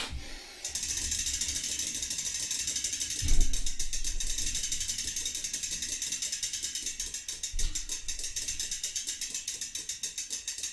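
Bicycle rear wheel spun by hand, its freewheel pawls ratcheting in a fast, even run of clicks that slowly spaces out as the wheel coasts down, with a single low thump about three seconds in.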